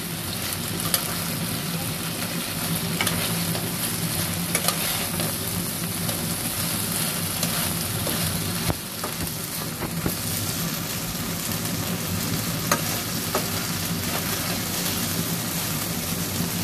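Pangas fish pieces sizzling in thick onion masala in a metal pan as a metal spatula turns them, with occasional sharp scrapes and taps of the spatula against the pan.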